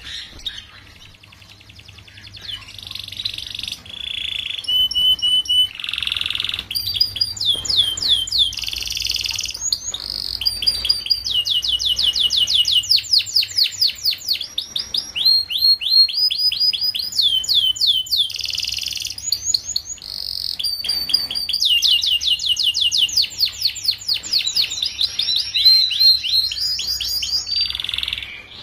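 Domestic canary singing a long, varied song, mostly rapid trills of fast repeated sweeping notes broken by short rasping bursts.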